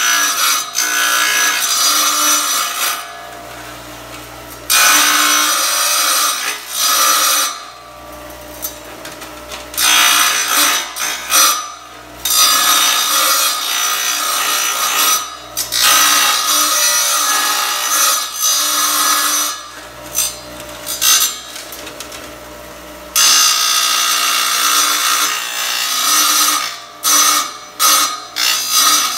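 Tile saw's blade grinding into a tile in long harsh bursts as the tile is pressed in to cut a curve, easing to the saw running on its own with a steady hum for a few seconds at a time when the tile is drawn back.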